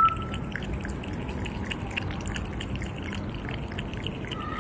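Water trickling, with many small irregular drips and splashes.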